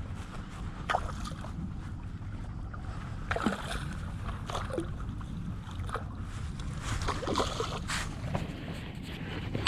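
Outdoor harbour ambience: a steady low rumble of wind on the microphone, broken by short, scattered splashing or creaking sounds, a few of them dropping in pitch.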